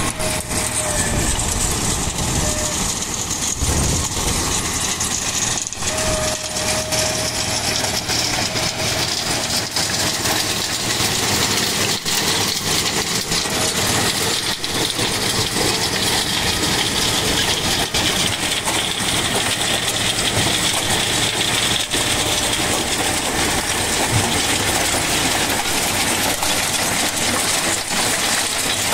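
New Holland 6010 tractor's diesel engine running steadily under load, driving a stone picker, with a constant clatter of soil and stones falling onto the machine's slatted metal screen.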